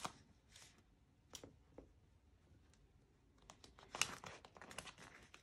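Faint rustling and crinkling of a paper sticker sheet as stickers are peeled off it. A few soft scattered crackles, then a denser cluster in the second half.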